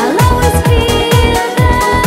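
Electronic dance music with a steady, pounding kick-drum beat and held synth notes, a synth sweep rising in pitch right at the start.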